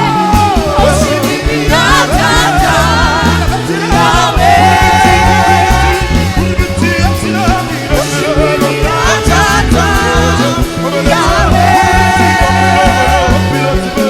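Gospel worship music: a lead singer holds long, wavering notes over a live band with a steady bass line.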